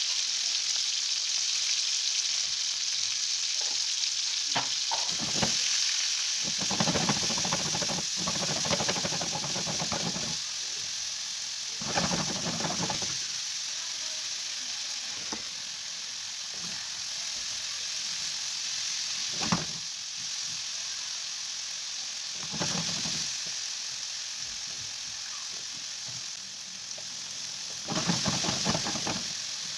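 Meatballs with chopped onions and bell peppers sizzling in a frying pan with a steady hiss. Several short bouts of stirring break through the hiss, and near the end the pan is shaken to toss the food.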